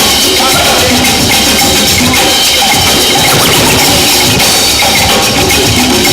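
Loud music with a percussive beat, played for a breakdance battle.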